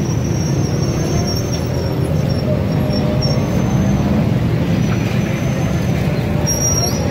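Steady street noise: a continuous low traffic rumble with voices of passers-by in the background.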